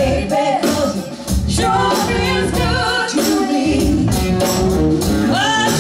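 Live band music: women singing over drums and electric bass guitar.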